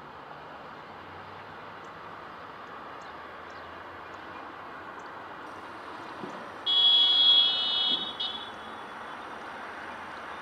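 A loud, high-pitched buzzing tone, steady in pitch, sounds for about a second and a half about seven seconds in, over a steady outdoor hiss.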